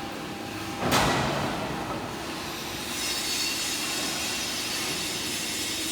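Heavy industrial machinery running: a sharp metallic clank about a second in, then from about three seconds a steady high whine of several tones over a low rumble.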